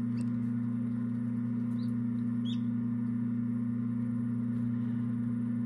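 Steady low hum of an egg incubator's fan running, with a couple of faint, short high peeps about two seconds in from a chick hatching out of its pipped egg.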